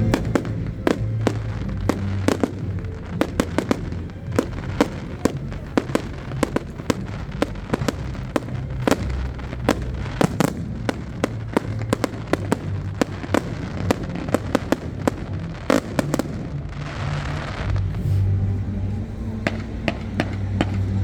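An aerial fireworks display bursting in rapid succession: many sharp bangs and cracks, close together and irregular. About three-quarters of the way through there is a hissing rush lasting about a second.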